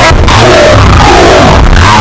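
Very loud music with a heavy bass.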